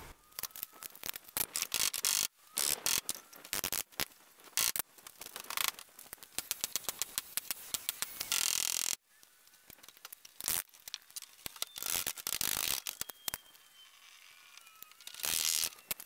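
Thin sheet-metal Z flashing being worked into place behind wooden siding: irregular clicks, knocks and short rattling, scraping bursts of metal against wood.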